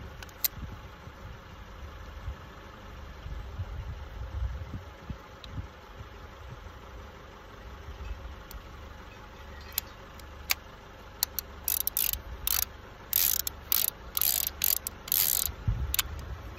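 Revolver handled in the hands: a few sharp metallic clicks, then from about ten seconds in a quick run of clicks and short rattling bursts as the cylinder ratchets round, over a low steady rumble.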